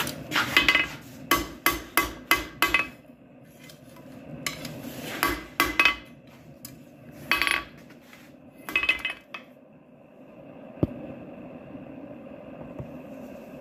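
Blacksmith's hammer striking steel stock held in a vise: a quick run of about eight ringing blows, then a few separate clanks. A faint steady hum follows for the last few seconds.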